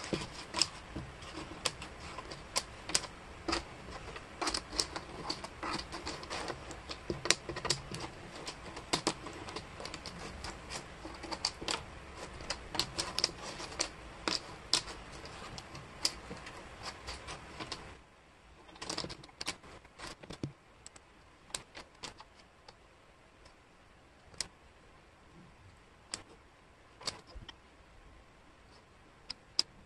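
Thin wooden jigsaw pieces clicking and clacking against each other and the tabletop as hands sort and shift them. There is a quick, irregular run of light clacks that thins out to scattered clicks about two-thirds of the way through.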